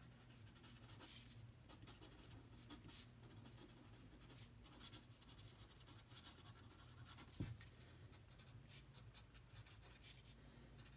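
Faint scratching of a pen writing on paper, in short irregular strokes, with one brief soft thump about seven seconds in.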